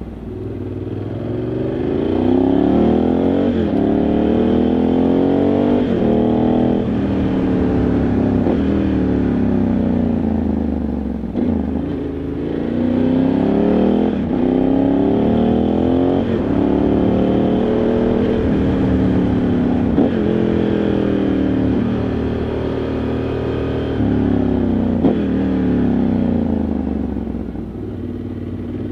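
Ducati Multistrada 1100S's air-cooled L-twin engine under way, revving up through the gears with the pitch climbing and dropping at each upshift. The revs fall away as the bike slows for a bend about halfway through and again near the end.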